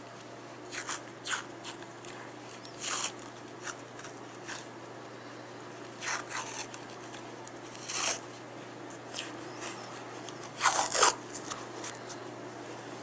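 Adhesive tape and paper rustling and crackling in short scratchy bursts, scattered irregularly with the loudest about eleven seconds in, as tape is pulled and wrapped around a splint on a kitten's broken foreleg.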